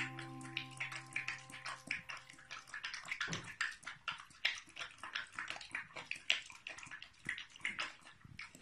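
A dog eating wet food from a stainless steel bowl: rapid, irregular wet lapping and chewing smacks, several a second. A faint held music chord fades out in the first few seconds.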